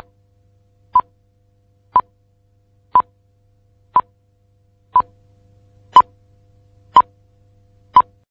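A short, sharp electronic tick or beep repeating evenly once a second, nine times, the last few louder. A faint low hum runs underneath, and a faint steady tone comes in about halfway.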